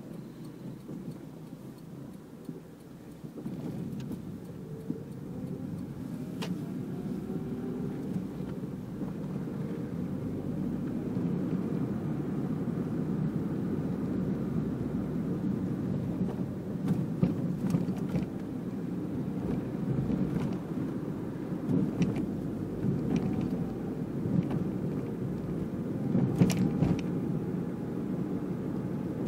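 Small car's engine and road noise heard from inside the cabin while driving, growing louder over the first several seconds as the car picks up speed, with the engine note rising in pitch. A few sharp clicks sound later on.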